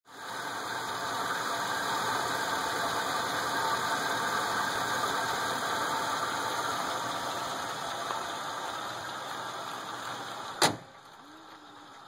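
2003 Chevrolet Silverado 1500 pickup engine idling steadily with the hood open. Near the end there is a single sharp click, and after it the sound is much quieter.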